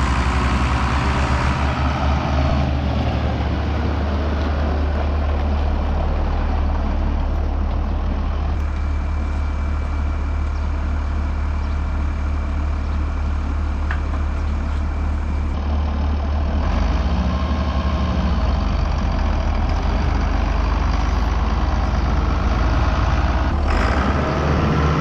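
International 1066 tractor's diesel engine running steadily under a deep, even low hum.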